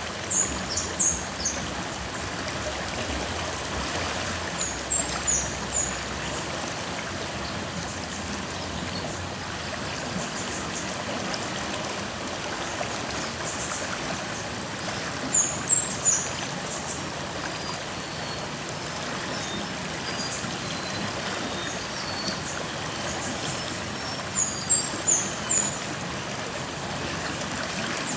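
River water flowing steadily as a continuous rushing stream. Over it, a bird gives short bursts of high chirps four times: near the start, about five seconds in, around the middle and near the end.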